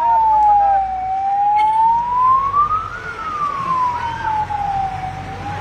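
Ambulance siren wailing: a single tone sliding slowly down and back up, one full rise and fall about every four seconds, over a low rumble.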